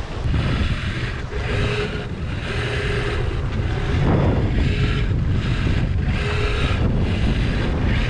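Wind buffeting the microphone over water rushing and splashing along a sailboat's hull as it sails through a long, heavy swell, the hiss of spray surging and easing about once a second.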